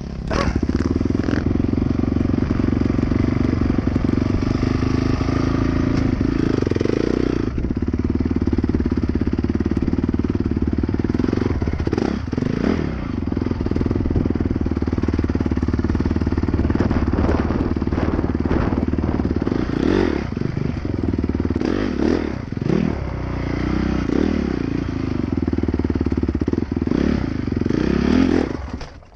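Dirt bike engine running under way, its pitch rising and falling several times as the rider works the throttle, picked up by a helmet-mounted camera.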